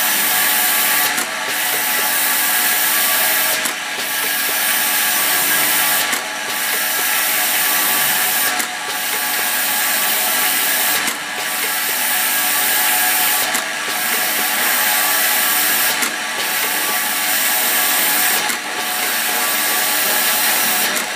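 E-liquid filling and capping machine running: a steady mechanical whirring hiss, broken by a brief dip about every two and a half seconds, in step with its bottle-by-bottle working cycle.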